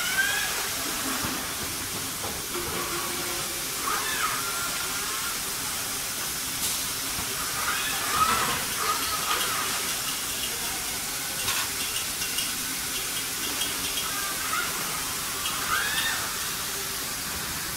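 Industrial robot arms in a car body shop, their motors whining up and down in pitch several times as they move. Underneath is a steady hiss of plant noise, with a couple of sharp clicks.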